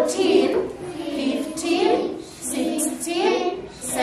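A class of young children counting aloud in unison, chanting one number after another in a steady sing-song rhythm.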